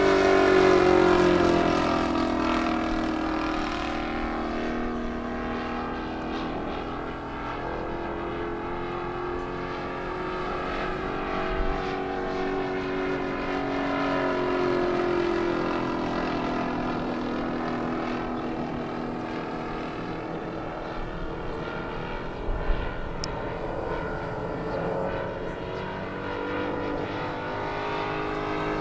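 A radio-controlled scale warbird's 120 cc Fiala FM120i2 engine and propeller running in flight overhead. Its engine note rises and falls in pitch and loudness as the plane flies past and turns.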